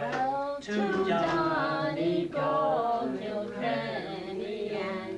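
A group of people singing together without accompaniment, several voices holding long notes.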